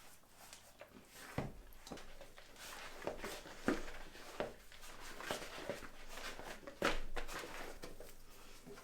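Hands mixing a fairly dry dough of flour, water and sourdough biga in a bowl: irregular soft squelches, slaps and taps.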